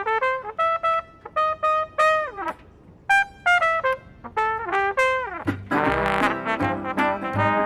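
A trumpet plays a solo jazz intro in short phrases separated by brief pauses. About five and a half seconds in, the rest of the small band comes in, with an upright double bass playing low notes under it.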